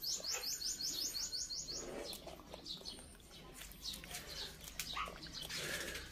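A bird trilling: a quick run of about a dozen short rising high chirps, about six a second, lasting roughly two seconds. After it come only faint small clicks and rustles.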